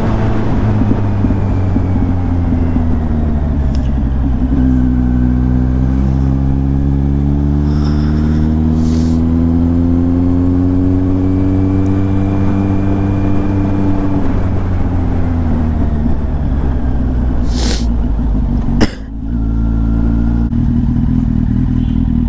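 Kawasaki Z800's inline-four engine running under the rider, its note rising slowly with speed and then falling away as the bike slows. A sharp knock comes with a brief dip in sound about three seconds before the end, and the engine then settles to a steady, lower note as the bike pulls up.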